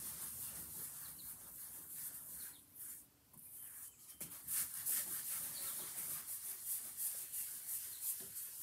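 French polishing rubber being rubbed back and forth over a shellacked wooden cabinet top: faint, repeated rubbing strokes of pad on wood, which stop briefly about three seconds in and then come thicker.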